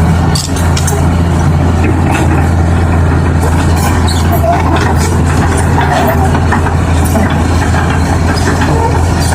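A heavy vehicle engine running steadily with a loud low drone, with scattered light clicks and knocks over it.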